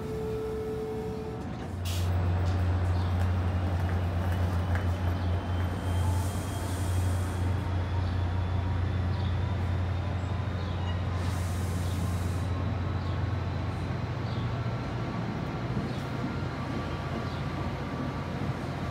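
NJ Transit train's diesel locomotive running with a steady low drone, which starts suddenly about two seconds in and eases off after about fourteen seconds. Two short air hisses come from the train's brakes, one about six seconds in and one about eleven seconds in.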